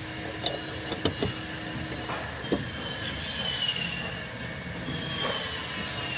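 A few sharp metal clicks and knocks as a steel bracket plate is fitted over a leaf spring's front eye bushing at the hanger, over a steady background hum, with faint high squeals in the second half.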